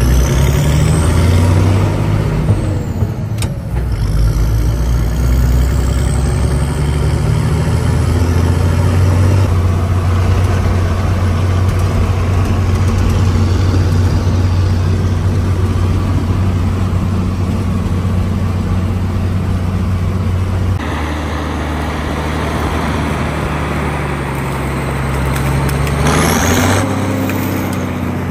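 Heavy vehicle's engine running as it is driven, its revs rising and falling. The note holds steady through the middle, drops about three-quarters of the way through and climbs again near the end.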